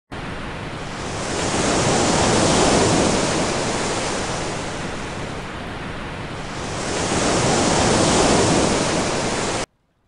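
Rushing surf-like noise of waves, swelling up twice like two waves washing in, then cutting off abruptly near the end.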